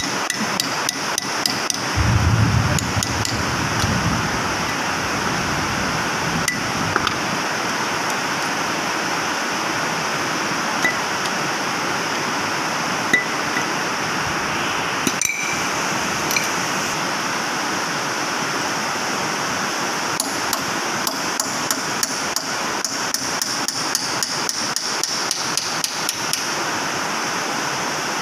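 Runs of rapid metal-on-metal hammer taps on the steel hub of a Linde R16 reach truck's load wheel as the wheel is worked loose for replacement, over a steady background hiss.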